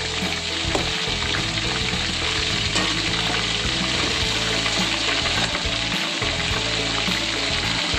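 Chicken pieces deep-frying in hot oil in a wok, sizzling steadily, while a slotted metal spatula stirs and turns them with a few light scrapes and taps.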